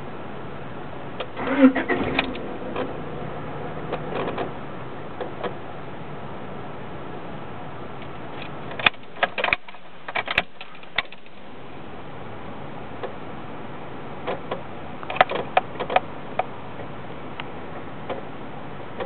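Car engine running, heard from inside the cabin, with several bursts of clicks and key-like jingling around the ignition; the engine's hum cuts out briefly about halfway through. The car has an intermittent stall and dash clicking that the owner suspects is an electrical short around the ignition switch.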